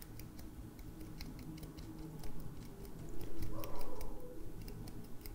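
A fine metal pick scraping glue off a small metal part of an iPhone Face ID module: light, irregular ticks and scratches, somewhat louder about three to four seconds in.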